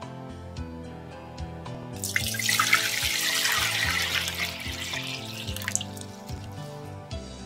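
Water poured in a stream into an enamel saucepan, splashing and filling the pot; it starts about two seconds in and tapers off about four seconds later. Soft background music plays throughout.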